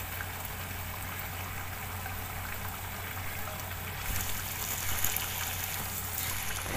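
Chicken liver in an oily yogurt masala bubbling and sizzling in a steel pot over a gas burner as the masala fries. A steady low hum runs underneath, and the sizzling grows brighter and crackles more from about four seconds in.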